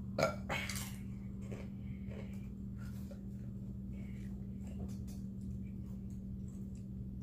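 Someone eating close to the microphone: scattered soft chewing and mouth clicks, with a louder crackle in the first second. A steady low hum runs underneath.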